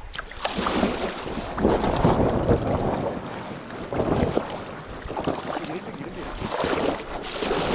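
Double-bladed kayak paddle strokes splashing in the river, about one a second, with wind buffeting the microphone.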